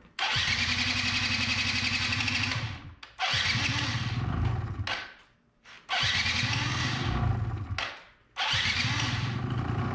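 Electric starter cranking the 49cc two-stroke engine of a 2005 Yamaha Zuma YW50 scooter in four attempts of one to three seconds each, with short pauses between. These are hard-starting attempts after a carburettor swap, and the last attempt runs on without stopping.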